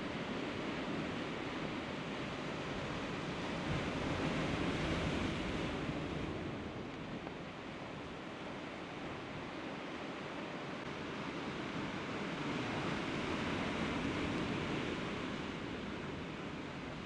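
Sea surf washing against a rocky shore: a steady rush of water that swells twice, about four seconds in and again a little past twelve seconds.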